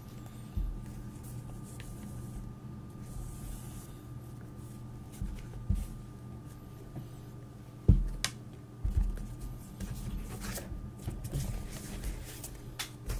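Quiet handling noises, scattered soft thumps and brief rustles, over a steady low hum; the loudest thump comes about eight seconds in.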